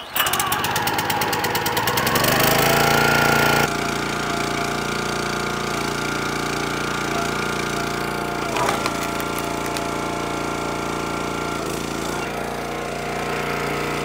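The small gas engine of a Countyline 25-ton log splitter running. It is rough and pulsing at first and rises in pitch. About four seconds in it drops abruptly to a steady running drone.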